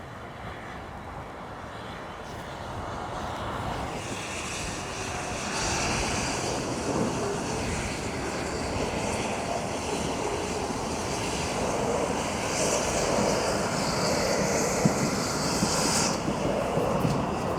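Railway train approaching, its running noise growing steadily louder, with a band of hiss from about four seconds in until near the end.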